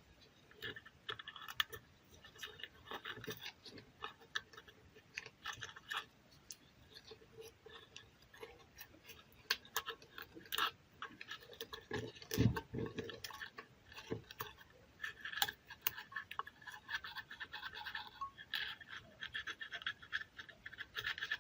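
Irregular scratching and scraping mixed with sharp clicks and knocks, as of small tools and parts being handled, with one louder knock about twelve seconds in.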